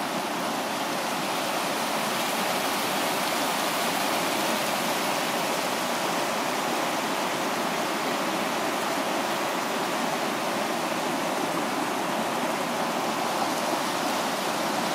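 River water rushing steadily over the rocky rapids and cascades of the Falls of Dochart, an even, unbroken rush.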